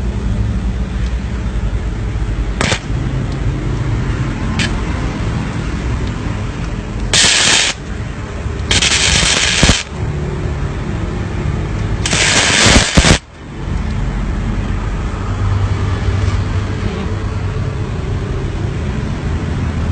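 Three short bursts of crackling from a mini gasless (flux-core) MIG welder's arc, each lasting about a second, over a steady low rumble.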